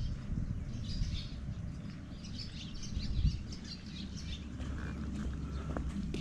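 Small birds chirping, a string of short high calls through the first half, over a steady low rumble.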